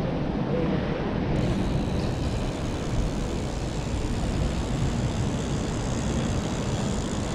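Steady wind and road noise picked up by a camera on a moving bicycle, a constant low rumble without any clear tone or rhythm.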